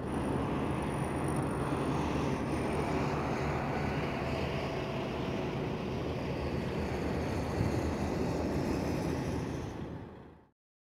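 Heavy truck's diesel engine idling with a steady low hum, fading out near the end.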